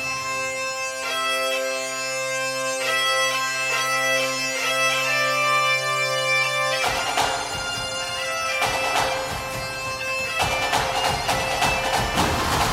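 Background music: a held drone under a reedy, bagpipe-like melody, then about seven seconds in a fuller, louder section with drums takes over.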